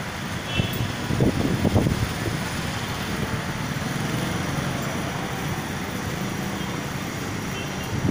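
Road traffic on a multi-lane avenue: cars and motorcycles passing in a steady rush of engine and tyre noise, louder for a moment between one and two seconds in.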